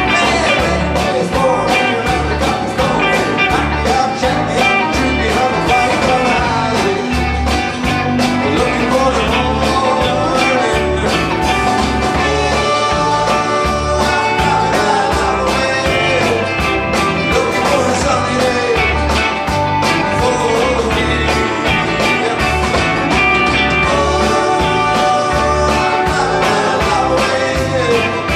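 Live rock band playing: electric guitars and a drum kit keeping a steady beat, with a man singing lead vocals.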